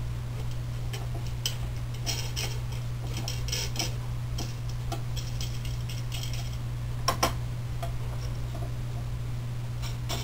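Light metallic clicks and clinks of a stainless steel nut being spun onto a threaded steel rod by hand, with a sharper double click about seven seconds in. A steady low hum runs underneath.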